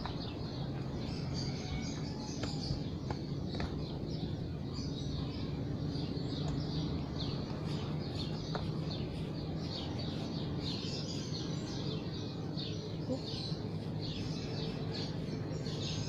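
Small birds chirping over and over, many short high calls overlapping, over a steady low background hum.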